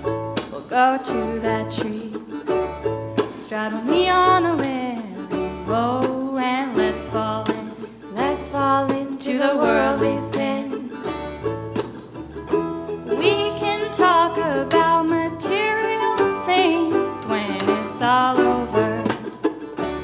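Women's voices singing a song live to plucked-string accompaniment, with a steady low pulse about once a second.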